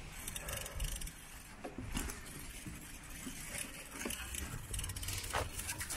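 Wind rumbling on the microphone, with light rattling and scattered clicks over it.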